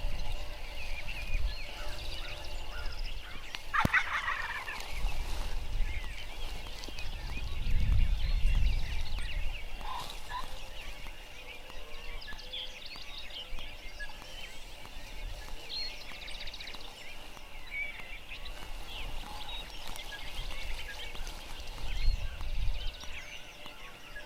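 Wild turkey gobbling, loudest about four seconds in, with small birds chirping and occasional low rumbles.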